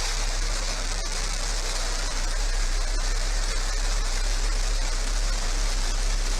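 Blue Origin New Shepard's single BE-3 hydrogen-fuelled rocket engine firing after ignition, just before liftoff: a steady rushing hiss with a deep rumble underneath.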